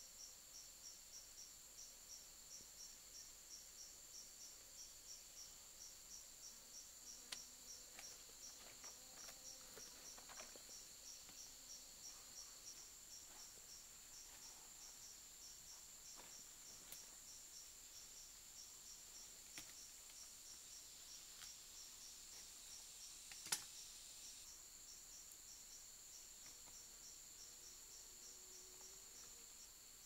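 An insect calls high-pitched in a steady pulsing rhythm, a few pulses a second, over faint forest background. A few faint clicks are scattered through, and one sharp snap comes about three-quarters of the way in.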